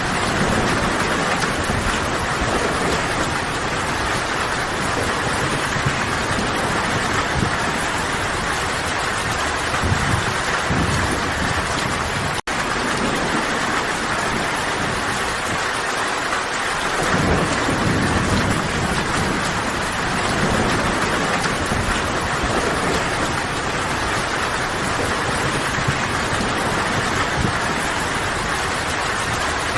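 Steady rain falling on forest foliage, with low thunder rumbles swelling and fading now and then. The sound drops out for a split second about twelve seconds in.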